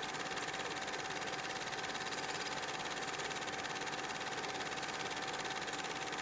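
A steady machine-like hum with one constant tone and a fine, even, rapid pulsing, unchanging throughout.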